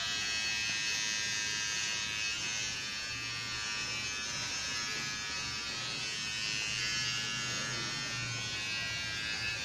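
Electric hair clippers running with a steady buzz while trimming a man's hair around his chin.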